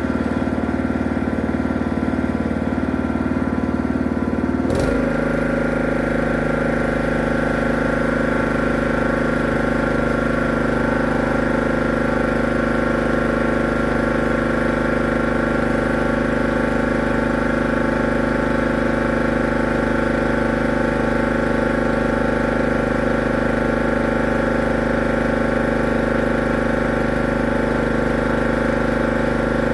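A machine motor running steadily with a constant hum; about five seconds in its tone shifts abruptly to a new steady pitch pattern and holds there.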